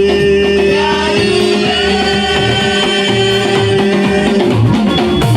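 Live church praise music: singing over a band with guitar and drums, with one long note held until about four and a half seconds in.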